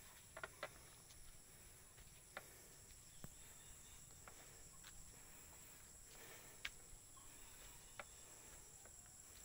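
Near silence: faint, steady, high-pitched insect chirring, with a few soft scattered clicks of footsteps on a dirt path.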